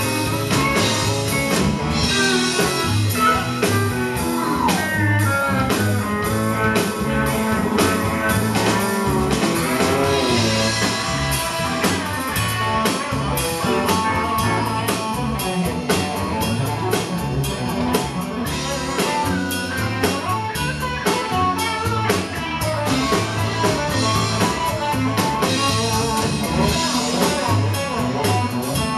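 Live rock band playing an instrumental stretch without singing: electric guitar lines with bent notes over a steady drum-kit beat, heard from the audience in a club.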